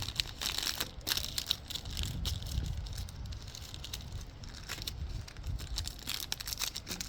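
Crinkling and crackling of a foil trading-card pack wrapper and cards being handled: a steady run of irregular rustles and sharp crackles.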